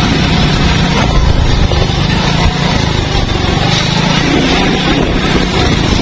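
Heavy rain in a windstorm, with strong wind buffeting the microphone as a loud, steady, deep rumble.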